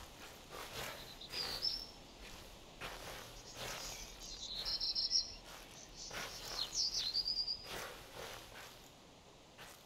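Slow footsteps outdoors, with three bursts of high-pitched chirping, the last ending in a quick trill.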